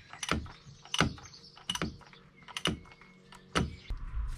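Sharp metallic clicks and clinks of a ratchet socket wrench being worked on a fitting in a car engine bay, about one every second.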